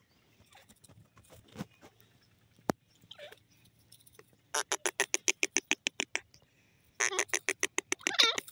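Grey francolin calling: two quick rattling series of clicky notes, about ten a second, the first lasting nearly two seconds and the second shorter, followed near the end by a brief harsher note.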